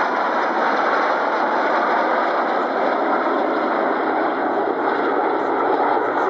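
Jet engine noise from a Swiss Airbus A330 flying in formation with Patrouille Suisse F-5 Tiger II jets, a loud, steady rushing sound with no change in level.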